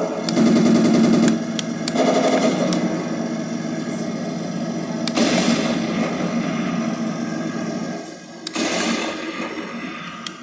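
Heng Long 1/16 RC M1A2 Abrams tank's built-in sound unit playing its simulated machine-gun fire through a small speaker, in several bursts of rapid fire with a longer burst midway.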